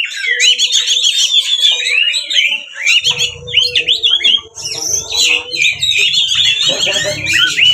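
Oriental magpie-robin (kacer) singing hard: a fast, unbroken stream of varied whistles, trills and chattering notes. This is the full-on fighting song used to provoke other magpie-robins into answering.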